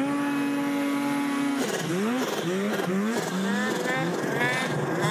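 Two-stroke snowmobile engine running at a steady high pitch for about a second and a half, then revved repeatedly, its pitch rising and falling in several short throttle bursts.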